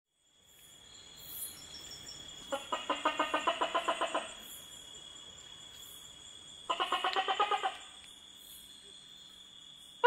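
Tokay gecko giving two rapid, rattling pulsed trills, about seven pulses a second, the first about a second and a half long and the second about a second. This chattering run is the lead-in to its loud 'to-kay' call. A steady high-pitched night-insect drone sounds behind it throughout.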